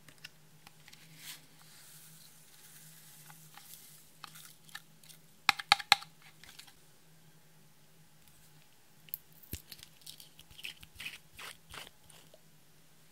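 Small plastic glitter and cosmetic containers being handled over a glass dish, clicking and tapping. A cluster of sharp taps about halfway through is the loudest part, and a run of lighter clicks near the end comes as a nail polish bottle's cap is worked open.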